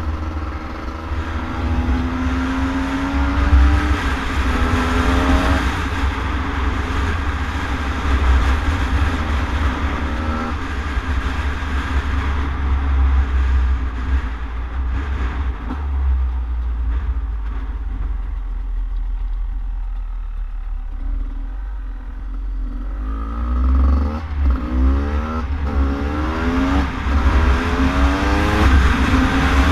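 2017 Beta 300RR two-stroke dirt bike engine revving hard through the gears, its pitch climbing and dropping back with each shift. It eases off for a stretch in the middle, then winds up repeatedly again near the end, over a steady low rumble.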